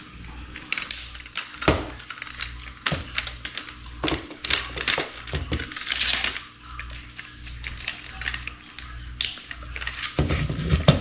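Metal telescoping tripod being set up: irregular clicks, knocks and rattles of its tube legs and plastic leg clamps as they are opened and slid out, with a short sliding swish about six seconds in, over a steady low hum.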